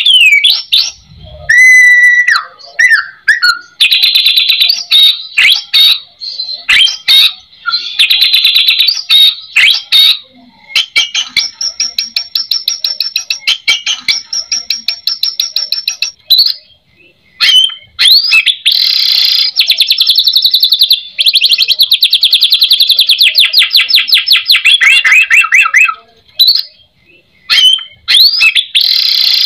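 White-rumped shama (murai batu) in full, varied song of loud whistled phrases, some gliding in pitch, broken by short pauses. Twice it breaks into long runs of rapid repeated notes lasting several seconds each.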